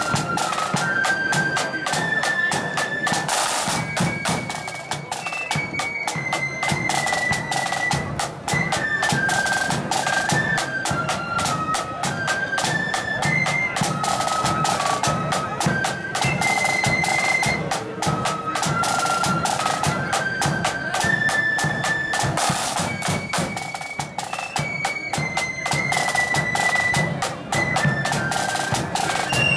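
Marching flute band playing a tune: the flutes carry a single melody line over rapid snare drumming and a steady bass drum.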